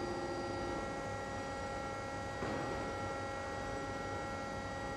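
Weingaertner rotor lathe cutting a steel progressive cavity pump rotor: a steady machine hum with several held tones, and a brief rush of cutting noise about halfway through.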